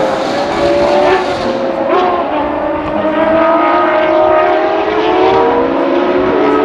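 Ferrari FXX-K's 6.3-litre V12 engine running hard on track. Its note climbs steadily in pitch through the second half as the car accelerates.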